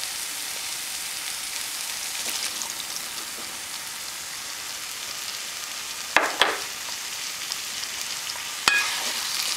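Onion-tomato masala sizzling steadily in a frying pan as cooked chickpeas are tipped in, with two sharp knocks, one about six seconds in and another near the end.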